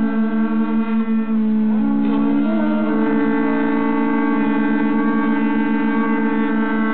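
Several ox horns blown together, holding long steady notes at different pitches so they drone against each other; about two seconds in one horn slides briefly to a new note.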